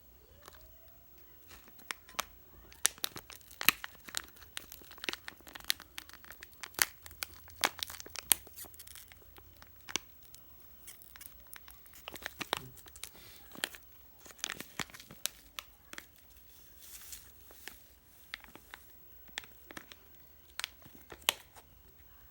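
Hands handling things during food preparation: irregular sharp taps and clicks with some crinkling, over a faint low hum.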